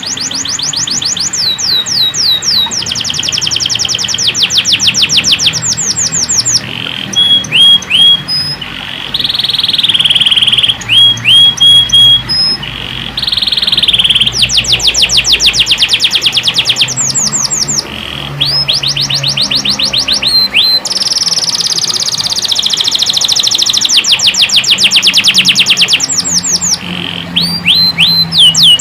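Domestic canary singing continuously: long runs of rapid trills and repeated chirps, broken by short pauses.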